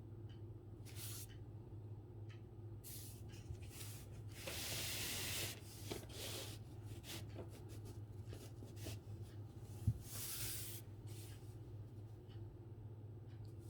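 Calligraphy writing: separate brush strokes swishing across paper, short and long, the longest about four and a half seconds in, with a sharp tap near ten seconds in. A steady low hum runs underneath.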